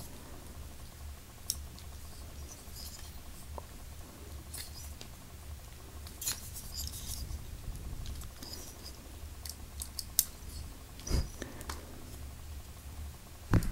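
Faint handling noises as a metal lightsaber hilt, a Saberforge Avenger, is turned over in the hands: a few light, scattered clicks and rubs over a low steady background hum.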